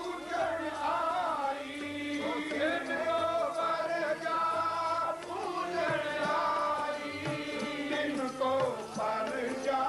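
Sikh kirtan: male voices singing a Gurbani hymn together in a chant-like melody, over steady held harmonium notes.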